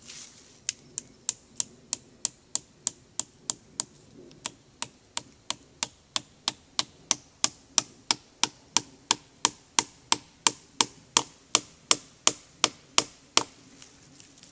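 Hammer striking again and again, about three blows a second, fastening a sheet of paper to a tree trunk; the blows grow somewhat louder toward the end.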